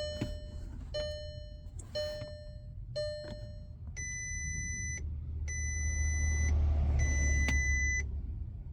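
Electronic warning chime dinging about once a second, four times, then three longer, higher steady beeps of about a second each, with a low hum building underneath during the beeps.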